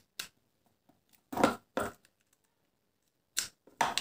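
Handling noise from a phone's retail packaging: about five short rustles and scrapes of paper, plastic and cardboard as the charger and cable are lifted out of the box, the loudest about a second and a half in.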